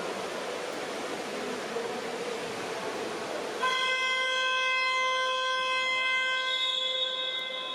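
Water polo game buzzer: one steady horn tone that starts suddenly about three and a half seconds in and holds for about three seconds before fading, over a steady noisy background.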